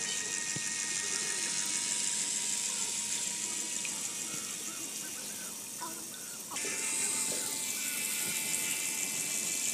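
Water churning and splashing from a small motor-driven, home-made plastic-bottle model boat, under a faint steady motor whine. The hiss brightens suddenly about two-thirds of the way through.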